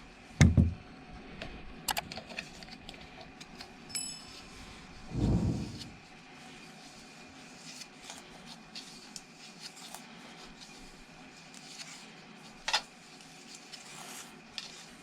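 Scattered metallic clicks and clinks from objects being handled, with a dull thump about half a second in and another about five seconds in, over a faint steady hiss.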